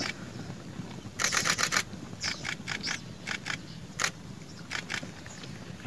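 Camera shutters firing in bursts: a fast run of clicks about a second in, then shorter bursts and single clicks, over low background noise.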